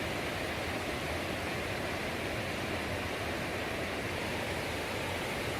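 Steady rush of river water, an even noise that neither rises nor falls.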